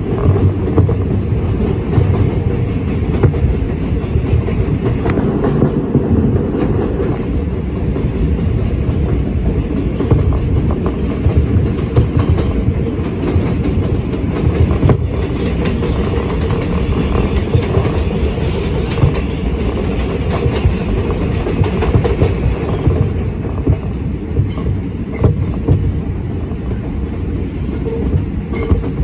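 Onboard an R142 subway car running on elevated track: a steady rumble of wheels on rail, with irregular clacks as the wheels pass over rail joints.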